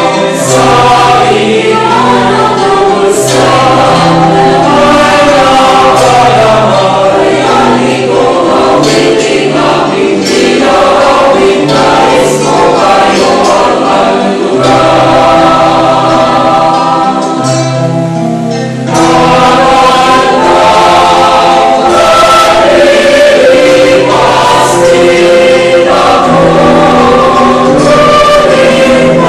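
Mixed choir of men and women singing together in parts, held notes moving from chord to chord, with a short break between phrases about two-thirds through.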